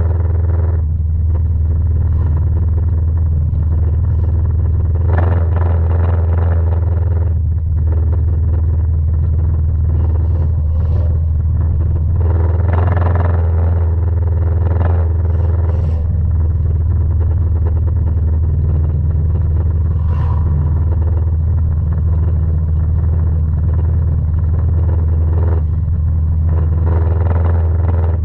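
Junk race car's engine running steadily, a loud low drone, with short bursts of clatter now and then.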